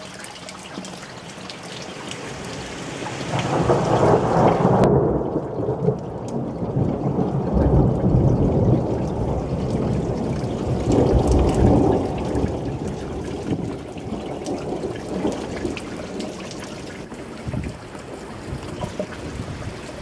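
Rain falling on a paved yard, splashing into puddles, with several long low rumbles that swell and fade.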